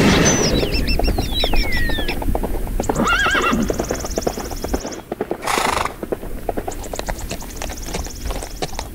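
A horse whinnies shrilly at the start, with the pitch falling, and a second wavering call follows about three seconds in. Galloping hoofbeats run underneath, and a short burst of noise comes about five and a half seconds in.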